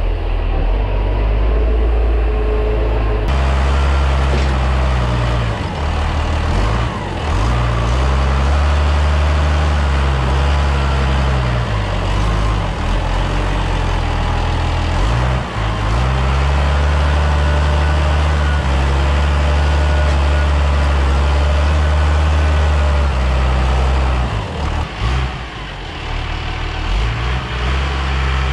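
Tractor engine running while the front loader works, its revs rising and falling again and again.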